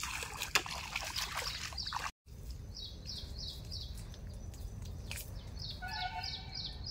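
A bird repeats a short, high, falling chirp about three times a second, with a brief lower call near the end, over a steady low rumble of wind. The first two seconds hold a crackling rustle.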